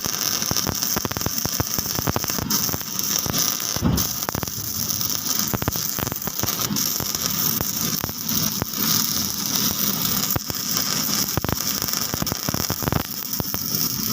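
Stick-electrode arc welding from a Panasonic YD400AT3 arc welding power source: a steady, dense, crackling hiss with many irregular sharp pops. It is the sign that the repaired machine is striking and holding an arc again.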